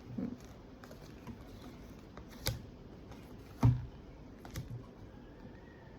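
A few scattered taps and clicks of cards being handled and laid down on a table, the loudest a little past halfway.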